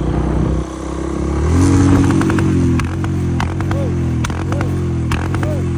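Royal Enfield Bullet single-cylinder motorcycle engine revving up about a second and a half in, then falling off in pitch with a string of sharp pops and crackles from the exhaust: the tuned misfire, backfiring on deceleration.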